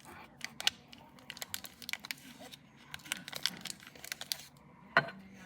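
Paper wrapper of a stick of butter crinkling and crackling as it is handled and cut, in a string of short, irregular crackles, with one louder knock near the end.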